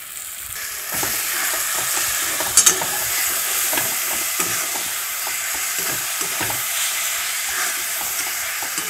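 Onions, tomatoes and green chillies frying in mustard oil in a metal kadai, sizzling steadily and growing louder about a second in, while a metal spatula stirs them with scattered scrapes and knocks against the pan.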